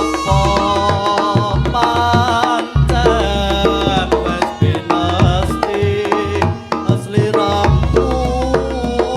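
Instrumental interlude of a Javanese song: hand drums keep a steady rhythm under several held, wavering melody lines, played loud through a sound system.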